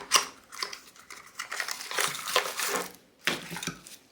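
Product packaging being handled while items are taken out of a box: crinkling and rustling, with light knocks and clicks in irregular spurts.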